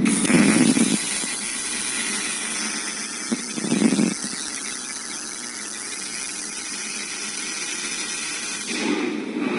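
Robotic welding torch arc hissing and crackling steadily, with louder, deeper surges at the start, about four seconds in, and near the end.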